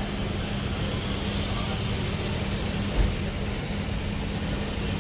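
Steady machine hum with a constant low drone while the car is being filled with gas, and one short thump about three seconds in.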